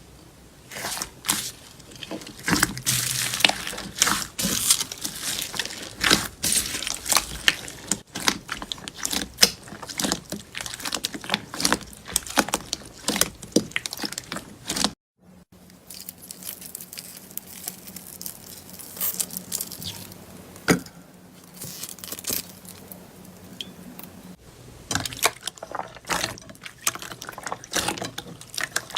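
Slime being squeezed, poked and stretched by hand: a dense run of sticky clicks, pops and crackles, broken by a brief cut about halfway through.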